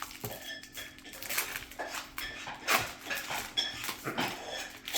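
Foil wrapper of a Topps baseball card pack crinkling and tearing as it is opened by hand, an irregular run of crackles.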